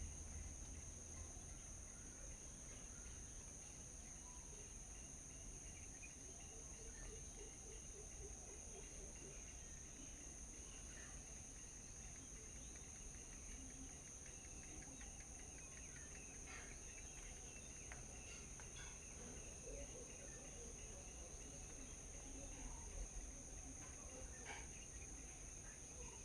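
Faint steady high-pitched drone of insects, with a few short bird chirps scattered through it.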